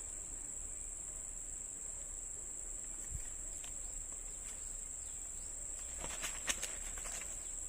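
Steady high-pitched chorus of insects, crickets or cicadas, in the surrounding vegetation, with a few faint clicks and rustles near the end.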